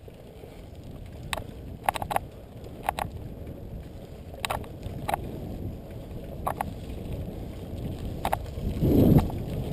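Bicycle rolling fast down a rocky dirt trail: a steady low rumble of tyres and wind, broken by sharp clicks and rattles as the bike jolts over bumps. A louder surge of rumble comes about nine seconds in.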